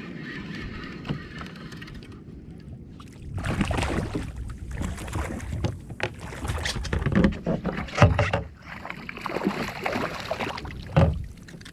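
Water splashing and irregular knocks against a kayak hull, starting about three seconds in after a steady hiss, with sharp thumps near the middle and end, as a hooked fish is handled alongside the kayak.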